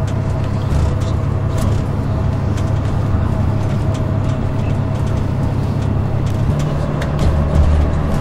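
Bus engine and tyre noise heard from inside the cabin while driving: a steady low drone with a faint steady whine, and occasional light rattles.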